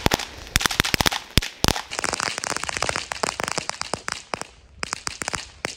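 Bubble-wrapped ground firework going off, its sparks venting out through one hole in the wrap: rapid crackling pops over a hissing spray, coming in uneven spurts with a fresh run of pops near the end.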